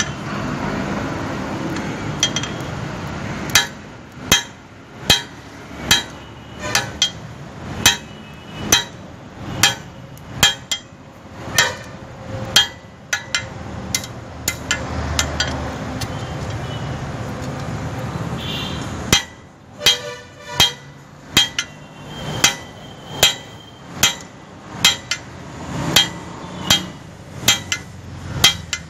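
A blacksmith's hand hammer striking steel on an anvil at a steady pace, about one blow every three-quarters of a second, each blow ringing briefly. The hammering stops for a few seconds midway, then resumes at the same pace. These are the forging blows that shape 12 mm square stock into tongs.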